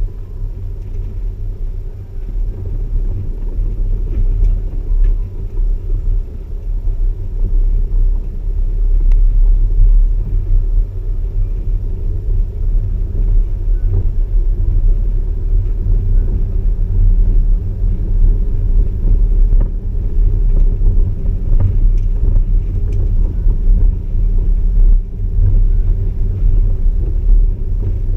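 Vehicle driving along a sandy off-road track, picked up by a camera mounted on the vehicle: a steady low rumble of engine and tyres that wavers in loudness.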